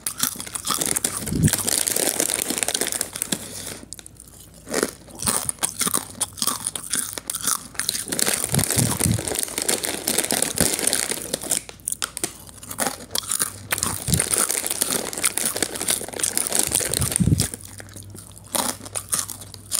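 Someone eating crispy chips: irregular crunching and crackling bites and chewing, with brief lulls about four seconds in and near the end.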